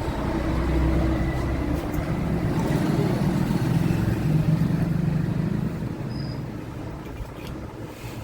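Traffic noise from outside: a motor vehicle's engine rumbling, growing louder to a peak about four to five seconds in, then fading away.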